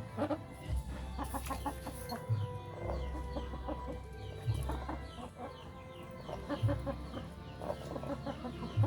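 A flock of chickens clucking, with many short high falling peeps mixed in.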